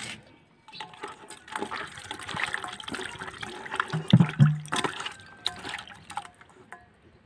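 Water sloshing and splashing in a steel bowl as a hand rubs and washes pieces of climbing perch, loudest about four seconds in.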